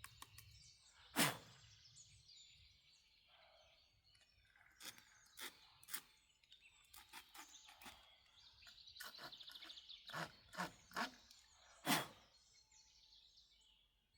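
Handling noises from cleaning sawdust and debris off freshly sawn wood: a dozen or so scattered sharp clicks and knocks, the loudest about a second in and another near the end. A bird trills briefly about two thirds of the way through.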